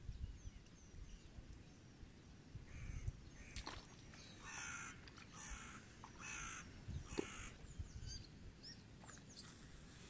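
A crow cawing faintly: a couple of quieter caws, then a run of four harsh caws in quick succession around the middle, over a low rumble.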